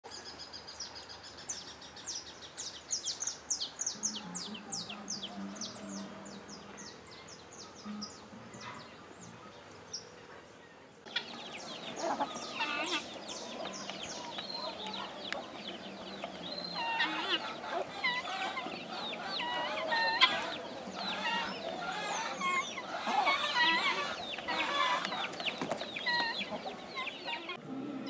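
For the first few seconds a wild songbird sings a quick run of high falling notes. At about 11 seconds the sound changes to chickens and turkeys clucking and calling together, which goes on to the end.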